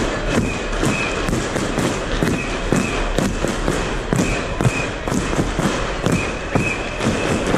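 Rapid, uneven thumps and knocks of a handheld or body-worn camera being jostled while its carrier walks, about two to three a second, over steady outdoor crowd and traffic noise.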